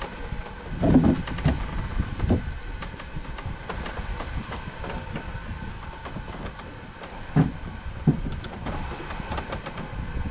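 Steady rumbling wind and wave noise aboard a small fishing boat on a choppy sea, with a few dull knocks: two about a second and two seconds in, and two more near the end.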